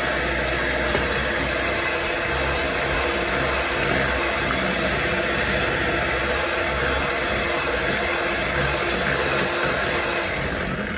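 Electric hand mixer running steadily, beating a cream cheese mixture, then switched off just before the end.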